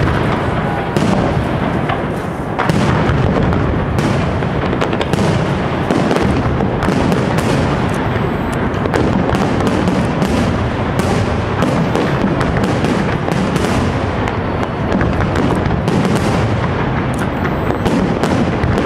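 Pirotecnia Europla aerial fireworks display in full barrage: shell bursts and crackling stars going off many times a second, overlapping into a continuous rumble of booms and crackle with no pause.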